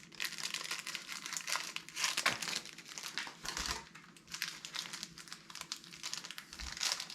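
Cellophane wrapper of a 1985 Topps rack pack crinkling and tearing as it is opened by hand, an irregular run of crackles.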